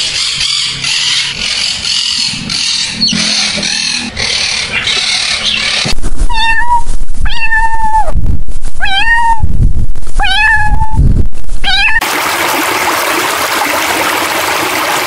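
A domestic cat meowing five times, loud and clear, each meow dropping in pitch at its end. Before the meows comes a stretch of harsh, noisy calling from a blue-and-gold macaw, and after them a steady rush of water.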